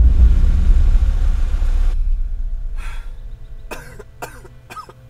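A sudden loud low rumble that fades over about three seconds, then a person coughing several times in quick succession near the end.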